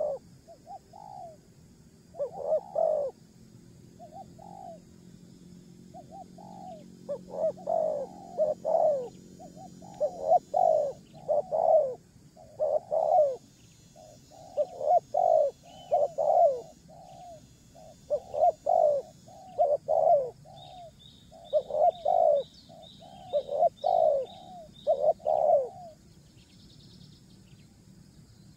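A dove cooing over and over, with low, short, downward-bending notes coming about once or twice a second. A second bird gives a faint run of quick, high chirps partway through.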